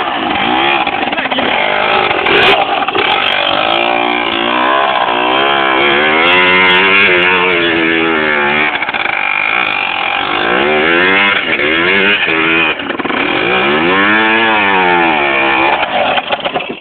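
Yamaha DT two-stroke motorcycle engine running loud and being revved repeatedly, its pitch rising and falling in several blips before it cuts off near the end.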